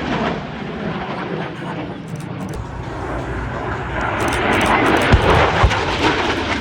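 Jet aircraft engine noise, a dense roar that swells about four seconds in. Two short low thuds come a little after five seconds.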